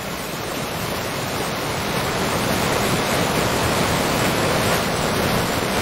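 AI-generated waterfall sound from the MMAudio model: a steady rush of falling water, growing louder over the first couple of seconds and then holding even.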